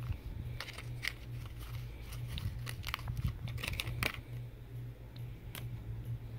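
Foil-wrapped hollow chocolate egg being handled and broken apart by hand: a string of sharp snaps and crinkles from the shell and its foil wrapper, over a steady low hum.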